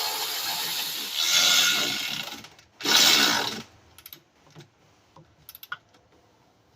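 Power ratchet with a 10 mm socket running bolts down, in a long run and then a short second run, followed by a few light clicks of the tool.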